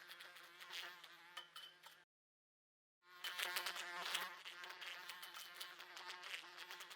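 A fly buzzing steadily at a window pane, with small sharp ticks as it bumps against the glass. The sound cuts out completely for about a second partway through. It comes back louder, then settles.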